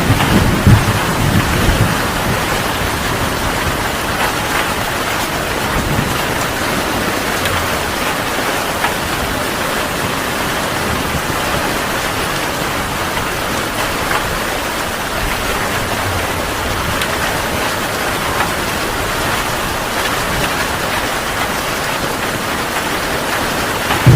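Heavy rain falling steadily, with a low rumble of thunder dying away over the first couple of seconds.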